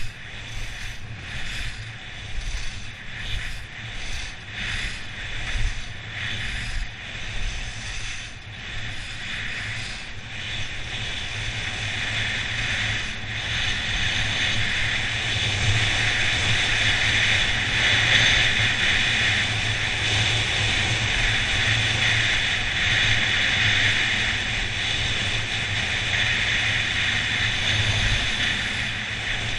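Skis carving down a groomed piste, the edges scraping the snow in short, regular turns about every half second for the first ten seconds or so. The turns then give way to a steady rush of wind over the microphone that grows louder and stays loud.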